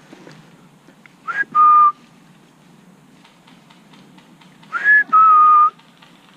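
Two loud whistled calls, each a short upward-sliding note followed by a longer, steady, lower note; the second call is held longer than the first.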